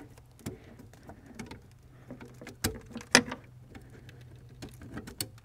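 Scattered light clicks and taps of hands handling the steel brake lines and the master cylinder in an engine bay, with two sharper knocks about two and a half and three seconds in.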